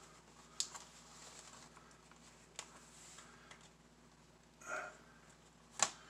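A few short sharp plastic clicks as the laptop's stuck bottom cover is pried and pressed at its edges, the loudest near the end, with a brief rustle shortly before it.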